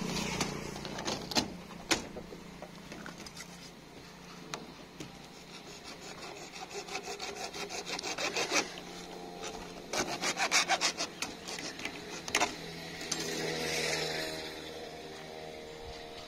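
Hacksaw blade cutting white PVC electrical conduit pipe by hand, in short fast back-and-forth strokes that come in two spells.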